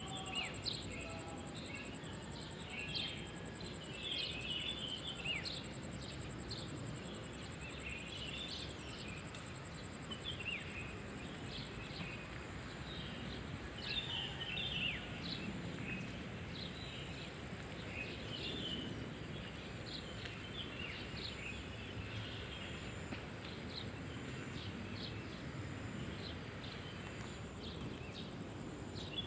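Many birds chirping and twittering in short, scattered calls over a continuous high, pulsing trill of crickets, with a low steady outdoor hum underneath.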